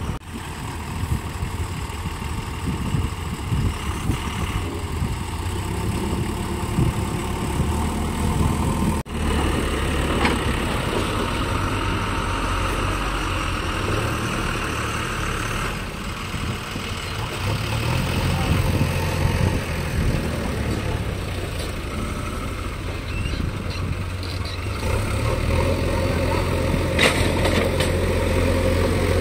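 Heavy diesel engines of a JCB 3DX backhoe loader and a Tata tipper truck running with a steady low drone. The engine note rises and falls at times, drops out for a moment about nine seconds in, and grows louder near the end.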